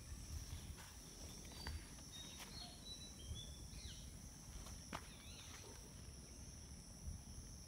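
Faint outdoor ambience: insects droning steadily at a high pitch, with several short, high bird chirps and whistles in the middle. There are a few soft clicks and rustles and a low rumble underneath.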